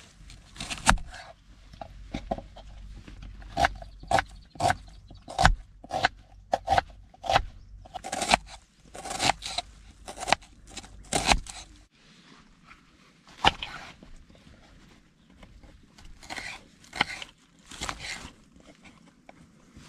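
Kitchen knife slicing red onion and then green bell pepper on a wooden cutting board: irregular sharp knocks of the blade striking the board, with the crunch of the cut, and a short pause partway through.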